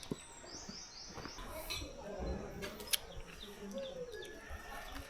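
A small bird gives four quick high chirps in a row about half a second in, over faint outdoor ambience with distant voices murmuring.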